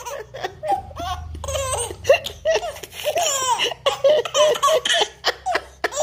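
A baby laughing hard, in a quick run of short bursts of laughter one after another.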